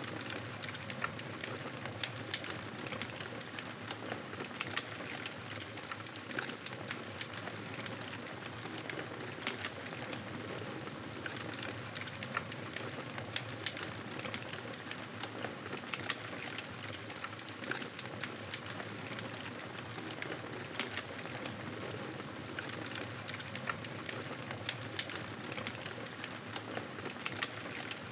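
Campfire crackling: a steady hiss of burning wood with frequent sharp pops and snaps at irregular intervals.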